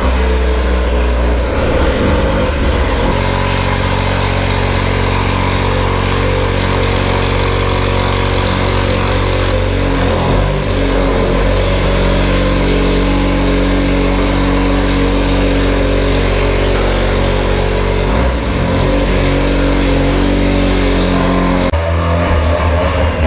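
Mazda RX-7 FD's engine running on a chassis dyno, held at steady speeds with its pitch shifting to a new level a few times, as in a dyno tune.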